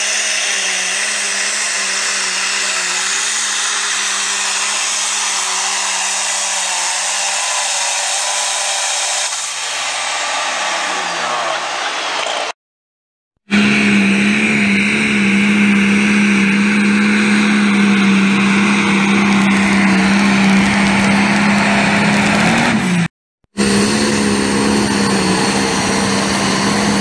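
Limited pro stock pulling tractors' diesel engines running flat out under load as they pull the sled, a steady engine note with a high whine over it. Three pulls follow one another, each ending with the engine note falling away as the throttle comes off, with brief breaks of silence between them.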